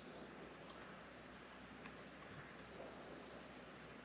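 A high, steady insect chorus, typical of crickets in summer grass, with a few faint clicks over it.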